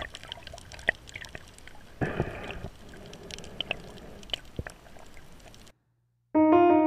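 Underwater sound picked up through an action camera's housing: scattered sharp clicks and crackles, with a short rushing burst about two seconds in. It cuts to a moment of silence near the end, then a saxophone jazz tune begins.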